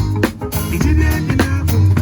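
A live band playing an upbeat groove: electric guitar and bass guitar over a drum kit.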